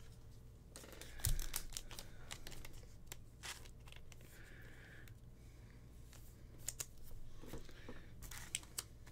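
Faint crinkling and rustling of plastic trading-card wrappers and sleeves as cards are handled, with scattered small clicks and a soft bump about a second in.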